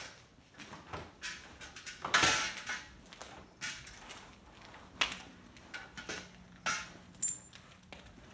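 Footsteps crunching over broken glass and debris on a hard floor: irregular crunches and scrapes, the loudest a longer crunch about two seconds in, with a short high ring near the end.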